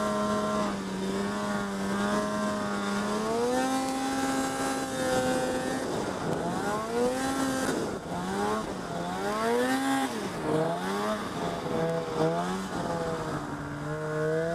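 Snow bike engine running under load in deep powder. It holds a steady pitch at first, revs up a few seconds in, then rises and falls repeatedly through the second half as the throttle is worked.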